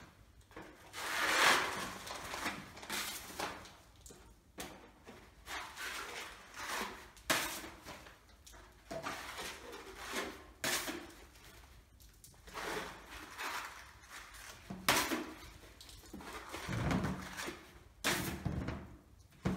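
Wide plastering knife scraping filler across a wall in repeated long strokes, each a swish lasting about a second, with a few sharp clacks as the knife is knocked against the other tool to load or clean it.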